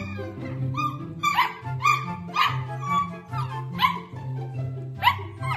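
Samoyed puppies yipping and barking in short high calls, about two a second, over background music with a steady bass line.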